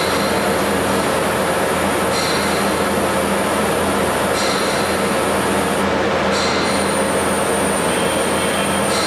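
Tube-cutting machine running: a steady, dense mechanical noise with a faint low hum, its high end shifting every two seconds or so.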